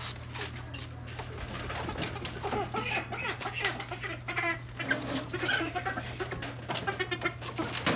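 Freedom Ranger chickens clucking and calling while being handled, with sharp clicks and clatter from plastic poultry crates, over a steady low hum.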